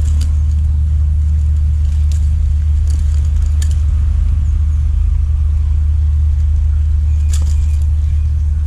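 A steady low rumble throughout, with a few short metallic clicks as fishing pliers work a lure's hook out of a caught fish's mouth; the clicks come about two seconds in, twice more shortly after, and once more near the end.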